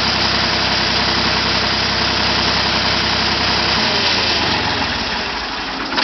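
Small John Deere crawler dozer's engine idling steadily, then cutting off about four seconds in and winding down to a stop.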